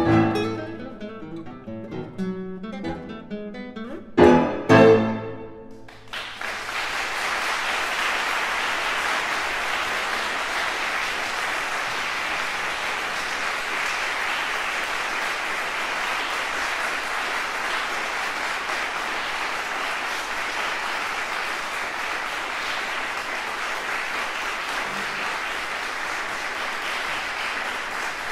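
Classical guitar and string quartet finish a piece with a short, loud final chord about four seconds in, then an audience applauds steadily.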